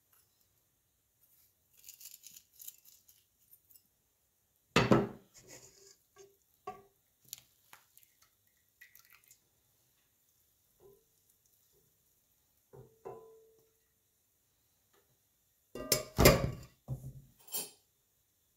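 Kitchen utensils knocking on a nonstick pan and metal colander while rice and vermicelli are tipped and spread with a plastic spatula: scattered light taps and clinks, one loud knock about five seconds in and a cluster of louder knocks near the end.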